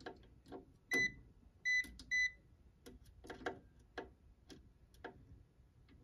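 Short, high electronic beeps from a Fieldpiece SC440 clamp meter: one about a second in, then two close together near two seconds. Light clicks and taps of test probes being set on the terminals run between them.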